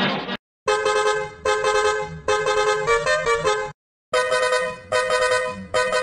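A musical multi-tone bus horn plays a short tune in a reworked 8-bit-style version: two steady blasts, then a longer one that steps up and down in pitch. After a short gap the phrase repeats. Just before it, a noisier version of the horn cuts off, followed by a moment of silence.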